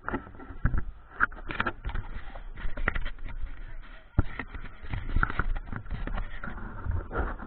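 GoPro riding on a spinning ceiling fan: uneven wind rush over the microphone with irregular rattling knocks.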